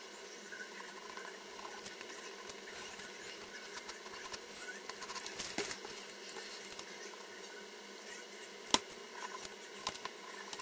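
Sped-up scratching strokes of a drawing tool on paper, many small quick scratches and ticks over a steady hiss, with one sharp tap about nine seconds in.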